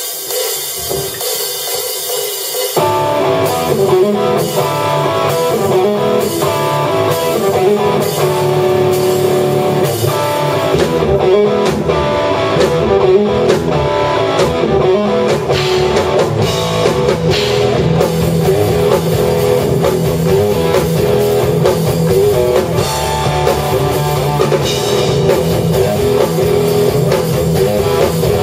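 Live rock band playing an instrumental passage on electric guitar, bass guitar and drum kit. It opens with guitar and cymbals, and the full band, bass and drums included, comes in about three seconds in and plays on steadily.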